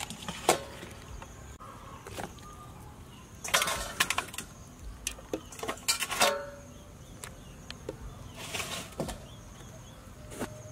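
Scattered knocks, clinks and rustles of food being handled in a stainless-steel cooking pot, bunched in a few short clusters, over a steady high chirring of insects.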